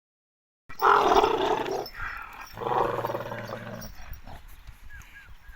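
Dairy cattle bellowing, two long, loud calls one after the other, followed by a few short high chirps near the end.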